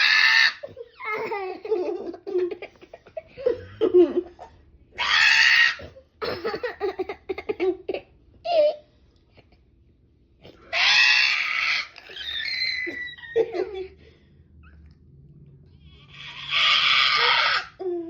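A person imitating a bird with their voice: four loud, harsh, screeching calls of about a second each, spaced several seconds apart, with laughing and giggling between them.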